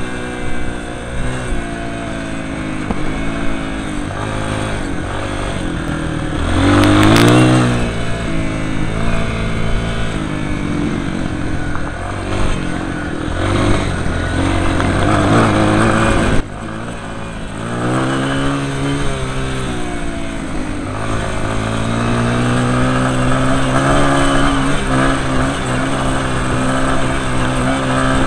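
Enduro dirt bike engine revving as it rides a rough gravel track, the engine note rising and falling repeatedly with throttle and gear changes. The loudest moment is a hard rev about seven seconds in; the sound drops sharply about sixteen seconds in and then builds again.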